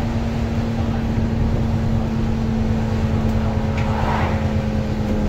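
Alexander Dennis Enviro400MMC double-decker bus driving, heard from inside the passenger saloon: a steady engine and drivetrain hum with low road rumble.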